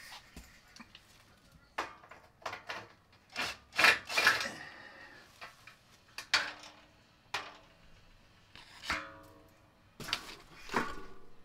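Irregular scrapes, knocks and rattles as the sheet-metal housing of an old fluorescent light fixture is handled, the loudest cluster about four seconds in.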